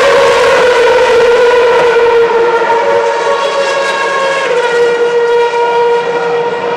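The pack of 2010 Formula 1 cars' 2.4-litre V8 engines running together as a high-pitched chorus of engine notes at several pitches, a few of them shifting. It gets a little quieter from about halfway.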